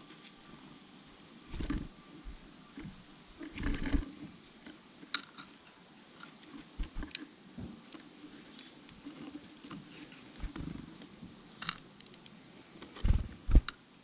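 Black-capped chickadees flying in and out of a wooden platform feeder: brief wing flutters and landings, with seed rattling and pecking in between and a few high, short chirps. The loudest flurry comes near the end.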